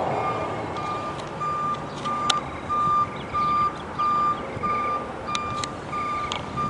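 Hi-rail pickup truck's backup alarm beeping: one steady tone repeated evenly, about one and a half beeps a second.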